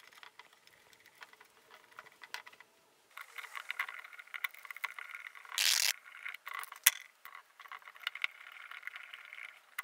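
Screwdriver turning and tightening the screw terminals on a metal drum switch as wires are fastened in: faint clicks at first, then a steady metallic scraping with rapid small ticks. A short rustling burst comes about halfway through and one sharp click about seven seconds in.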